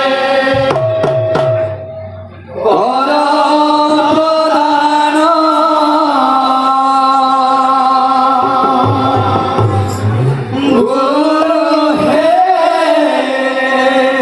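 Western Odisha kirtan music: singing in long held notes that slide up into each phrase, over drum strokes and hand cymbals. The music drops away briefly about two seconds in, then comes back.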